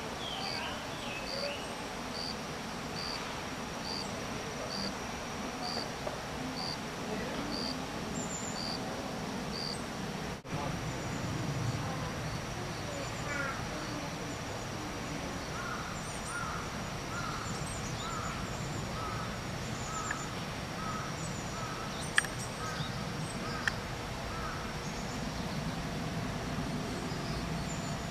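Outdoor bird and insect ambience: a high chirp repeated evenly, about every two-thirds of a second, through the first third, then a lower call repeated at a similar pace through much of the second half. Under both run a steady high insect drone and a low background murmur, with a couple of sharp clicks near the end.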